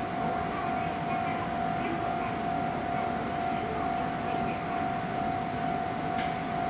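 A steady single-pitch tone, unwavering throughout, over an even background hiss.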